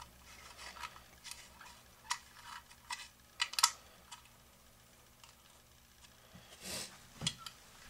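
Small sharp plastic clicks and taps as a plastic screw-in tripod clip is handled and fitted to a clear plastic action-camera housing: a scatter of clicks over the first few seconds, a pause, then a short rustle and one more click near the end.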